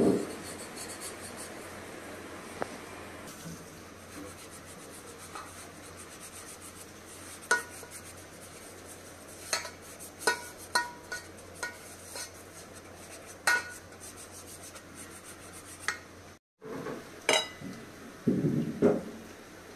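A pastry brush rubbing grease around the inside of an aluminium cake pan, with scattered light clinks and taps of brush against pan. Near the end, a few louder knocks of kitchenware.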